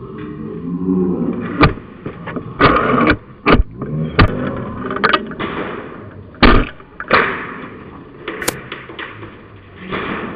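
Sharp clacks and knocks, about ten of them at irregular intervals, over rustling and faint distant voices.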